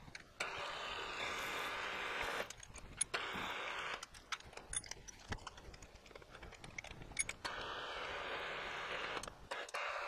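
Small metal clicks and taps as a drill bit is fitted and tightened in a milling machine's drill chuck. Three stretches of a steady hiss, each one to two seconds long, are the loudest sound.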